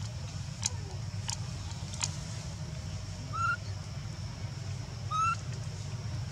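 Two short animal calls, each a brief note gliding upward in pitch, a little under two seconds apart, over steady low background noise. A few faint clicks come in the first two seconds.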